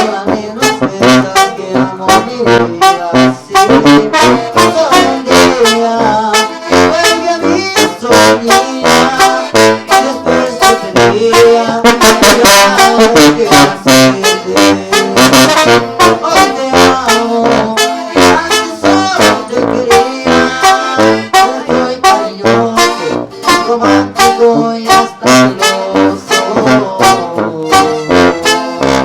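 Regional Mexican band playing live: a saxophone lead over tuba and bass, with a steady drum beat.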